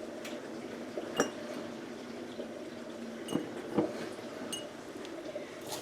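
A few light clinks and taps on glass jars, some briefly ringing, as dill is packed into them, over a steady low background hum.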